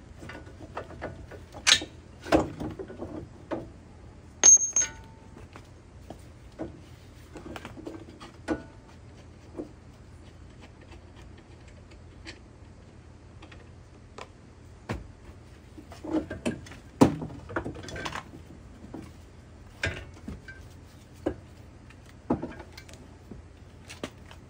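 Scattered metallic clinks, knocks and rattles of hands and tools working on a car's front strut and suspension, with a brief high squeak about four and a half seconds in.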